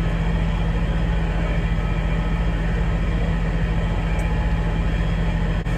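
A large engine idling steadily, a low, evenly pulsing rumble that breaks off for an instant near the end.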